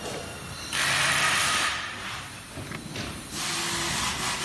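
Electrical wires and plastic connectors rustling and scraping as they are pushed by hand into an electric scooter's stem. The handling noise comes in two loud stretches of about a second each, about a second in and near the end.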